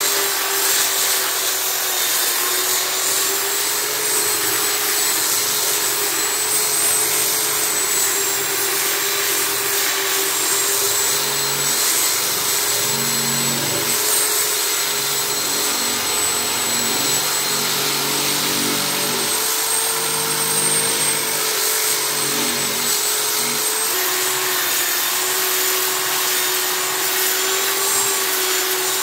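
Handheld power tool with a sanding disc running steadily as it sands the cured black resin inside a wooden bathtub: a constant motor whine over a rasping hiss, the pitch wavering slightly as the disc is pressed and moved, dropping a little later on.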